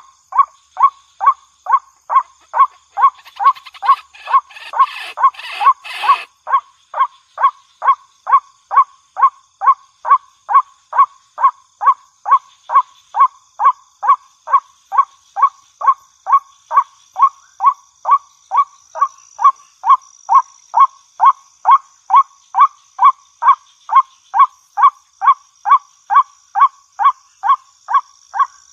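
Waterhen (jal murgi) calling, the same short note repeated very evenly about twice a second without a break. A burst of rustling noise comes about three to six seconds in.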